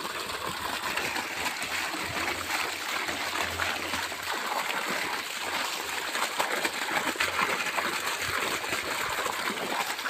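Water gushing steadily out of a PVC pipe outlet, splashing and spattering as a child's hands break the stream.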